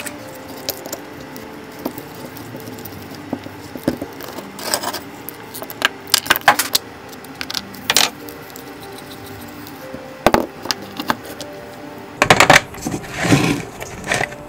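Small steel parts of a dismantled bicycle hub clinking and rattling as they are handled and set down on a wooden bench, in scattered clicks. Near the end a denser run of metallic clatter as the parts are moved about in a tray of oily liquid.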